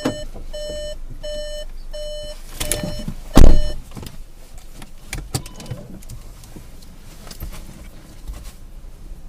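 A car's electronic warning chime beeps steadily about twice a second, then a car door shuts with a loud thump about three and a half seconds in and the beeping stops. A few light clicks and knocks follow inside the cabin.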